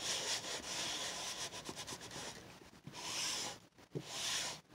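An ink pad rubbed back and forth over a painted carved rubber stamp: scratchy scuffing strokes, quick and close together at first, then a few slower separate swipes in the second half.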